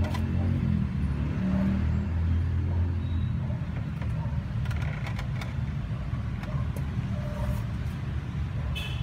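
Steady low rumble of motor vehicle traffic, heaviest in the first three seconds, with a few faint clicks about five seconds in.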